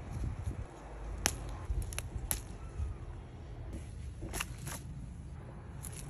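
Garden plants handled during picking: several sharp snaps and rustles of stems and leaves, over a low rumble of wind on the microphone.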